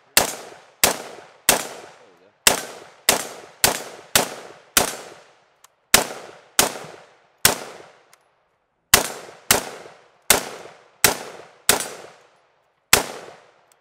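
Unsuppressed Brownells WWSD 2020 AR-15-pattern 5.56 rifle fired in semi-auto, about seventeen sharp shots at an uneven pace of one every half-second to second with a few short pauses. Each report trails off in a brief echo.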